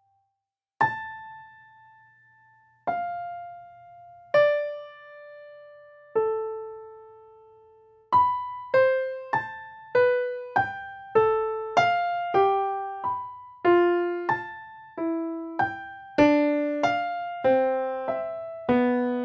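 Solo piano music. After a brief pause, slow single notes are each left to ring. From about eight seconds in, a quicker line follows at nearly two notes a second, filling out into fuller notes and sinking lower near the end.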